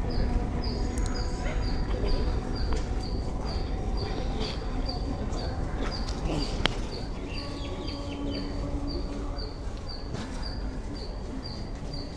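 A short high chirp repeating very evenly about twice a second, over a steady low rumble and hum, with a single sharp click about six and a half seconds in.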